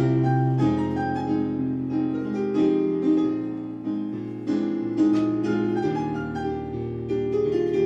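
Piano played four hands: a melodic piece with a steady stream of notes over a bass line.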